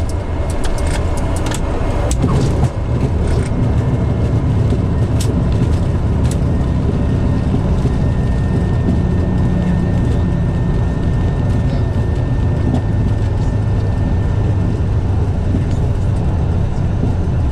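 Airplane cockpit noise during the landing roll: a loud, steady rumble of the engines and the wheels on the runway, with a few sharp clicks in the first few seconds.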